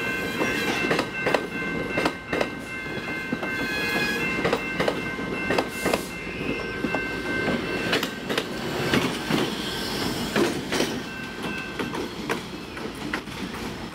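Bilevel commuter train passing close by at speed, its wheels clacking over the rails, with the diesel locomotive at the rear going by about halfway through. A steady high tone runs alongside and stops about two-thirds of the way through.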